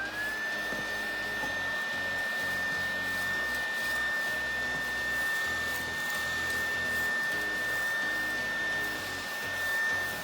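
Xiaomi Mi G10 cordless stick vacuum's motor spinning up with a quick rising whine, then running steadily with a high whine over a rush of air. It cuts off near the end.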